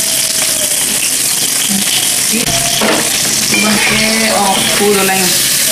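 Food frying and sizzling in a large steel wok, with a metal spatula stirring and scraping through it.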